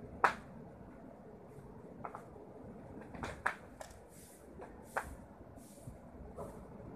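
Folded towels and linens being handled and stacked: soft cloth rustling with scattered sharp taps and knocks, the loudest a fraction of a second in.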